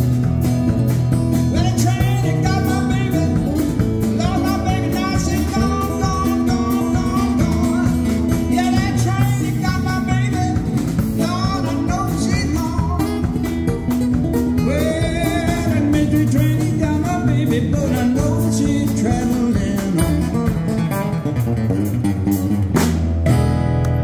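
Live band with acoustic guitars, upright bass and drums playing a blues/rock-and-roll number with a sung vocal, closing on a held final chord near the end.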